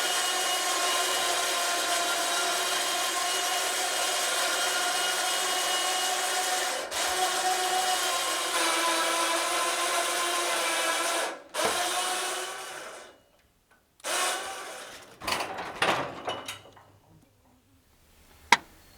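Manual bandsaw mill running, its blade sawing through a log with a steady whine over a noisy hiss. It winds down and cuts off about 12 seconds in, followed by a few scattered knocks and a single sharp click near the end.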